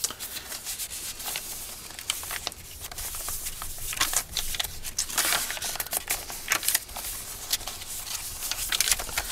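Paper pages of a handmade junk journal being turned, and its paper tags, pockets and cardstock inserts handled: irregular rustling and light crackles of paper.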